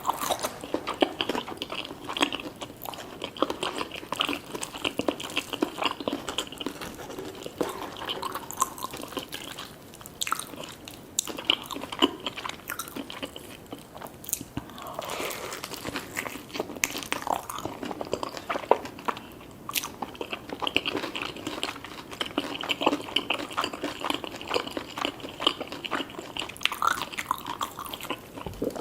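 Close-miked eating of fried chicken with gravy and French fries: crisp bites and crunching, with chewing and small mouth sounds in an irregular stream.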